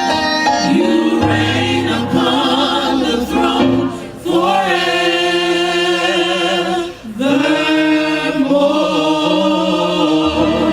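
Gospel choir singing held chords in harmony, breaking off briefly twice, about four and seven seconds in.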